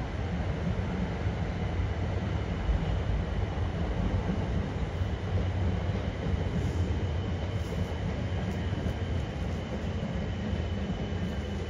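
A train running through the station: a steady low rumble of wheels and traction with a faint high whine over it.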